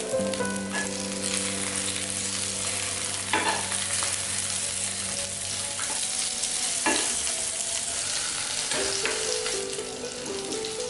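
Black pepper salmon balls sizzling as they fry in hot oil, a steady crackling hiss, with three short knocks along the way.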